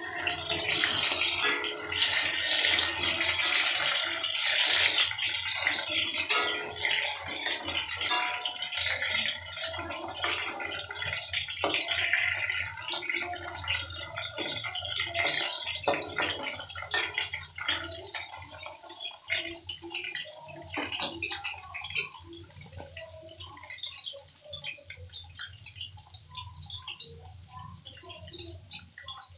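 Potato wedges frying in hot oil in a steel kadhai, sizzling loudly at first and fading off through the second half as they fry. A few sharp clicks of a metal ladle against the pan come through the sizzle.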